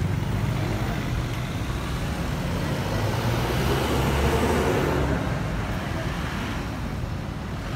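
Roadside city traffic: car and jeepney engines running and tyres on the road. It swells as a minibus passes close about four seconds in, then eases.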